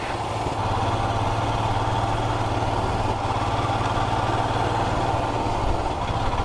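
Royal Enfield Himalayan's single-cylinder engine running at a steady pace as the motorcycle is ridden along, an even low hum with no change in revs.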